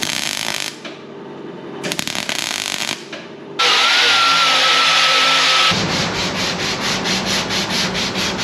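Two short bursts of MIG welding crackle on the car's body panel, then a small grinder cutting the weld with a steady whine for about two seconds, then a long sanding board stroked back and forth over the bodywork, about three strokes a second.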